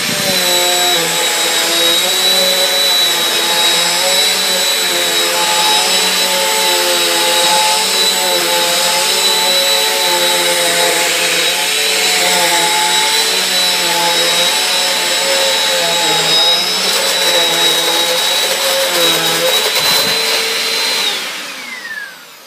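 Small single-motor upright vacuum cleaner running on carpet, its belt-driven beater bar turning with the motor. It makes a loud, steady high whine, and its lower tones waver slightly. About 21 seconds in it is switched off and the whine falls away.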